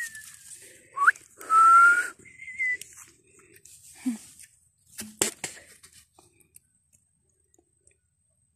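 A woman whistling through pursed lips, imitating chicks: short chirping peeps and a longer rising whistle in the first few seconds, the rising whistle loudest. A couple of sharp knocks follow about five seconds in.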